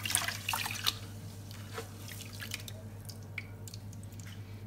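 A hand gently swishing rice grains around in water in a stainless steel saucepan, with small splashes and drips. This is the rice being rinsed to wash the starch out. The splashing is busiest in the first second or so and sparser after.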